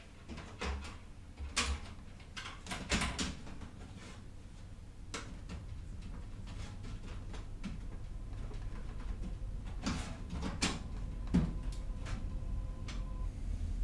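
Scattered clicks, taps and knocks of hardware being handled and fitted into a PC case, with a low hum underneath that grows louder about halfway through.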